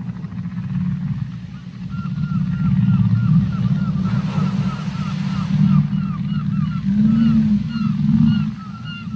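Whale vocalizations heard underwater: a series of short, arching calls repeating about three times a second from about two seconds in, with low moans near the end, over a steady deep rumble of water.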